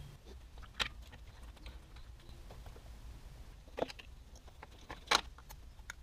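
Handling noise as an LED headlight bulb and its plastic wiring connector are fitted and plugged together: three sharp plastic clicks spread across a few seconds, with faint small ticks between them.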